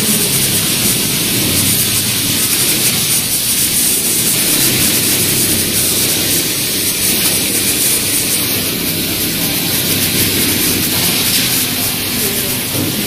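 Automatic pattern sewing machine running: a steady hiss with a hum beneath it, with no change in level.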